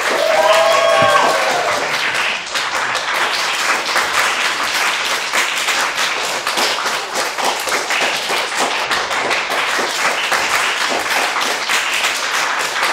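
Audience applauding: dense, steady clapping from many hands, with a voice or two calling out over it in the first second or so.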